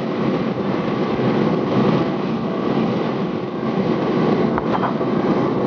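A steady rushing noise that holds level throughout.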